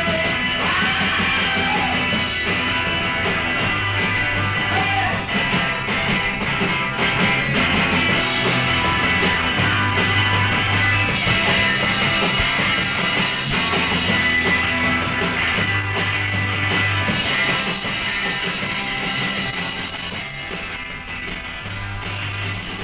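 Rock band playing live, with electric guitars, bass guitar and drums.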